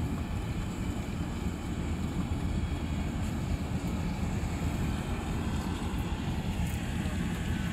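A combine harvester running steadily, a constant low rumble.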